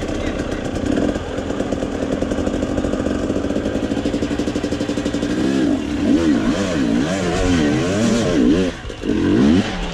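Enduro motorcycle engine, a Husqvarna TE250, running under way: a steady drone at first, then about halfway through the revs rise and fall several times as the throttle is opened and closed.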